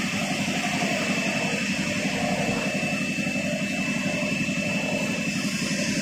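Injection molding machine running steadily: a dense, fluttering low hum with a thin, steady high whine over it.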